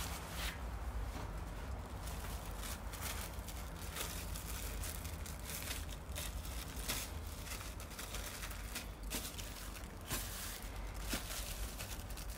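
Clear plastic film crinkling and rustling in short, irregular crackles as pita dough is pressed flat between its sheets by hand, over a low steady hum.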